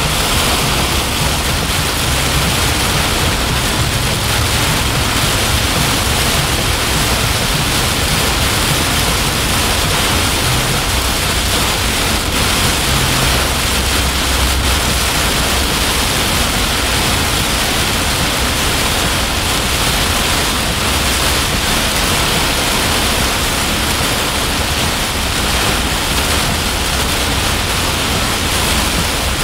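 Heavy rain pounding on a vehicle's roof and windshield, heard from inside the cabin: a loud, steady rush with a low rumble underneath.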